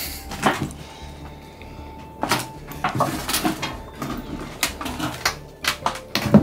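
Footsteps on loose mine debris: irregular knocks, clanks and crunches as shoes step onto corrugated sheet metal and old wooden boards, with the loudest clank near the end.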